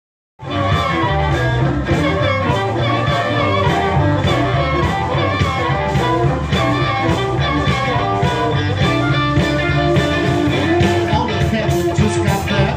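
Live electric blues band playing an up-tempo number: electric guitars, bass and drums on a steady beat, with a harmonica played into a vocal microphone. The music comes in abruptly about half a second in.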